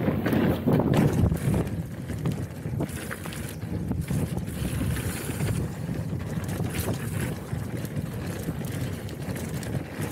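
Wind buffeting the camera microphone on a fast mountain-bike descent, a dense low rumble that holds steady, with scattered short clicks and rattles.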